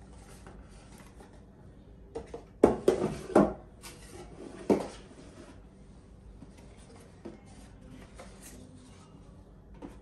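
Rigid cardboard gift box being opened: the snug lid rubs as it slides off the base. There is a cluster of knocks and scrapes between about two and a half and three and a half seconds in, then one sharp knock a little later, followed by quieter cardboard handling.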